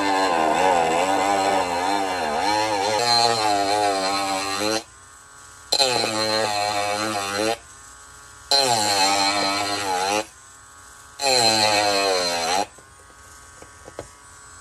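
Dremel rotary tool with a sanding drum, running at about speed 4, grinding down raised plastic details on a model kit part. It runs in four stretches of a few seconds each: the motor whine wavers in pitch while grinding and drops away at the end of each run.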